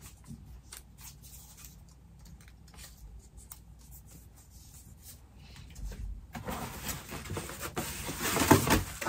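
Scattered small clicks and taps of items being handled, then from about six seconds in louder rustling and crinkling of packaging being opened.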